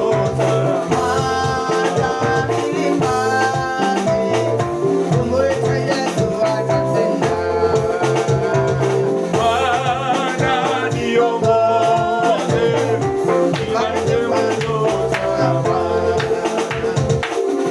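Upbeat music with singing over a steady drum beat and instruments.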